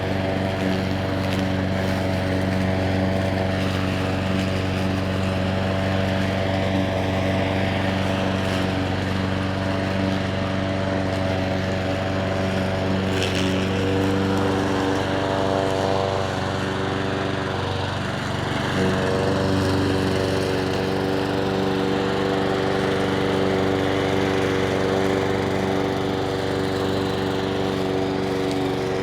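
Petrol lawn mower engine running steadily, its note shifting slightly about halfway through.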